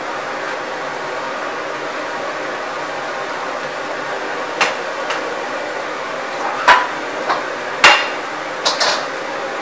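Steady roar of a commercial gas wok range, with cauliflower and carrots blanching in a wok of steaming water. In the second half, several sharp metal clanks as a metal utensil knocks against the steel woks.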